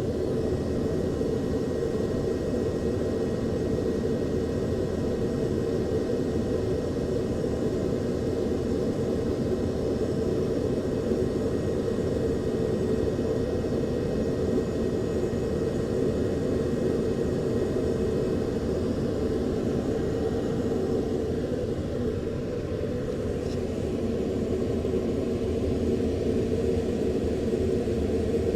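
Jet aircraft noise: a steady, loud rumble with a low hum that eases slightly about two-thirds of the way through.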